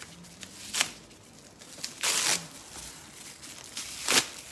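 Plastic wrapping torn and crinkled by hand while unwrapping: three short rips, the longest about two seconds in, with softer rustling between.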